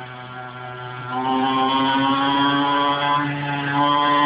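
Mini bike (pocket bike) engine pulling harder about a second in and getting louder, then running at steady high revs with small rises and falls in pitch.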